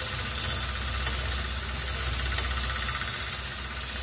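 Belt grinder running with a steel axe bit held against its belt, a steady grinding hiss over the motor's hum. The belt is worn almost bare of grit, so it is polishing the edge more than cutting it.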